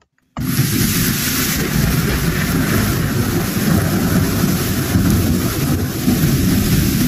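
Steady rush of storm noise, wind and rain with a heavy low rumble, cutting in abruptly about half a second in.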